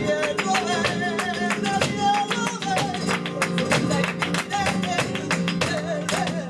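Live sevillanas: a flamenco guitar strummed with a singer's wavering vocal line over it, and rapid sharp percussive strikes several times a second.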